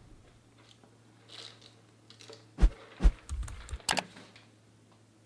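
Handling noise: a cluster of sharp knocks and low thuds about halfway through, lasting about a second and a half, as of things bumped on a table close to the microphone.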